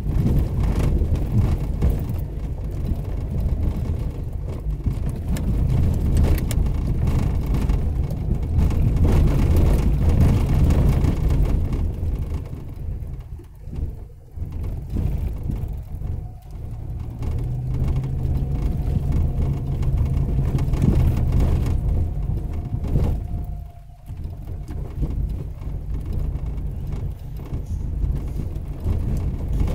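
4x4 vehicle driving over a rough dirt trail: a heavy, steady low engine and drivetrain rumble with constant rattles and small knocks. The sound eases off briefly twice, about halfway through and again near the end.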